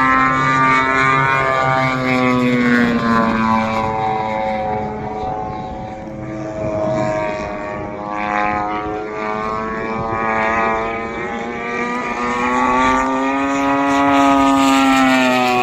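Engine and propeller of a radio-controlled SBACH 342 aerobatic model plane in flight. The pitch falls over the first few seconds and rises again later as the plane passes and changes throttle. It grows fainter in the middle and louder near the end.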